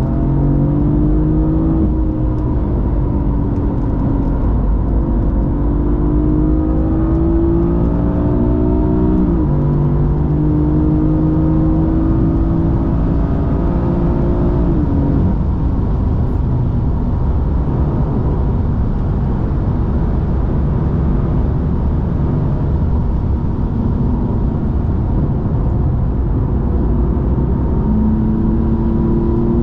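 BMW M4's twin-turbo straight-six accelerating hard, its pitch rising, dropping at one upshift about nine seconds in, then rising again. About fifteen seconds in the engine note fades off the throttle and a heavy rush of wet tyre and road noise takes over, until the engine picks up again at a lower pitch near the end.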